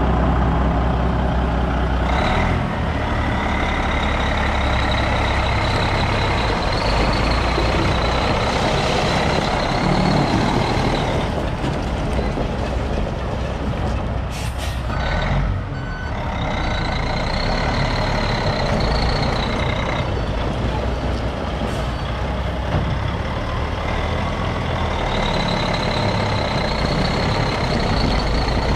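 1992 Ford LTL9000 tri-axle dump truck's diesel engine idling steadily, with a high whine that comes and goes several times. A short hiss about halfway through.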